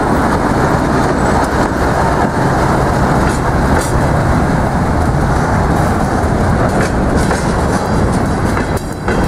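TEM2M diesel shunting locomotive passing close by with its engine running, followed by freight wagons rolling past on the rails: a loud, steady rumble throughout.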